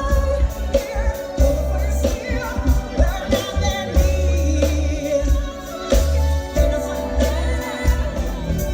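A live neo-soul band playing: a female lead vocal sings over drums, bass and keyboards, with a heavy, sustained bass line and a steady drum beat.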